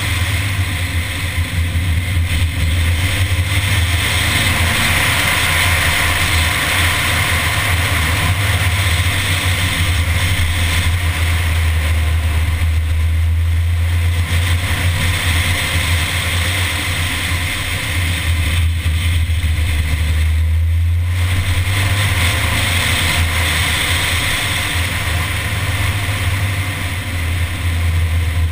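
Mini's engine running under steady driving load, with tyre and wind noise, heard from a camera mounted on the bonnet. The sound dips briefly about twenty seconds in.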